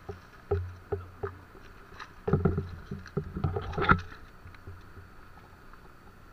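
Footsteps in flip-flops over loose river stones, with knocks and clatter of a speargun being handled and set down on the rocks; the loudest clack comes near four seconds in, after which it goes quieter.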